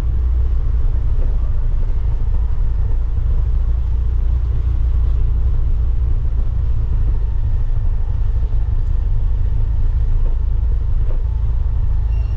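Steady, loud low rumble of a motorcycle under way: engine running, mixed with air rushing over the microphone.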